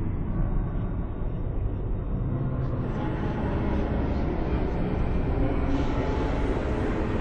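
A steady, deep rumbling drone.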